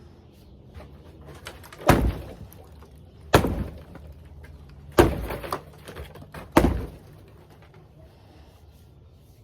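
Four heavy sledgehammer blows on a hot tub's shell, about a second and a half apart, each a sharp crack with a brief rattle after it as the tub is smashed apart.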